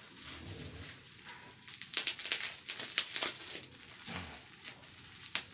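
Plastic packaging being handled and worked at: irregular crinkling, crackling and small clicks as a clear plastic box is turned and pried at.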